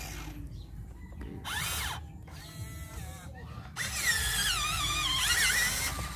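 Electric motors of an RC toy excavator whining in short bursts as its upper body and arm move, the pitch rising and falling with each burst. From about four seconds in comes a longer, louder stretch of whine that wavers in pitch.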